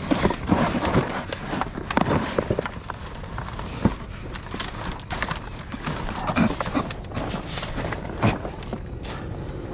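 Junk being shifted and rummaged through by hand: irregular knocks, clunks and clatter of hard objects, with rustling between them.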